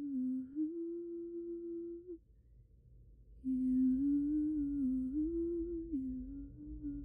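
A woman's voice humming a slow, gentle melody in two phrases, with a pause of about a second between them.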